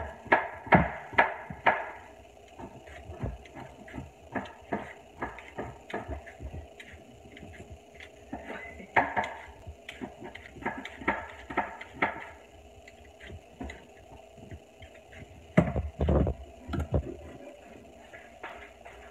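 Kitchen food-preparation noise: irregular taps, clicks and knocks of utensils and food being handled on a counter, with a few louder thumps about three-quarters of the way through.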